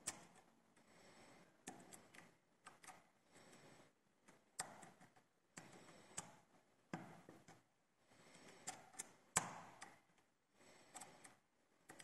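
Faint, irregular metal clicks and short scrapes of lock picks working inside a Zeiss IKON SK6 Sperrwelle Extra Code cylinder lock, the sharpest click about nine seconds in.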